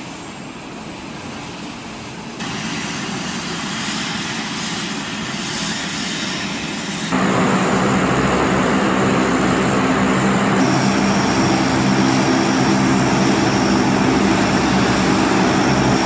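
Lockheed C-130 Hercules's four turboprop engines running on the ground: a steady propeller drone with a deep hum under a high turbine whine. The sound jumps louder twice, about two and seven seconds in.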